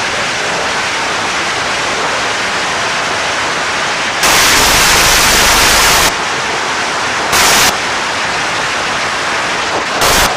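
A long string of firecrackers going off in a dense, rapid crackle that blurs into a continuous loud hiss. It gets louder for about two seconds starting around four seconds in, with shorter louder bursts later and near the end.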